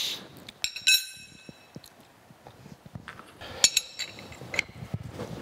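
Metal tools clinking against the steel parts of a milling machine as the clamp dogs holding a slotting attachment are tightened. Two bright metallic clinks ring on briefly, about a second in and again past the middle, with lighter taps and knocks between.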